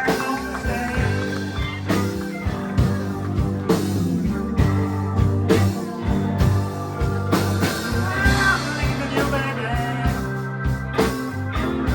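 Live blues band playing a slow blues: electric guitar over bass and a steady drum beat, with bent guitar notes about two thirds of the way in.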